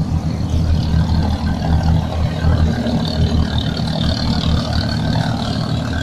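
An engine running steadily, a low hum with no change in speed.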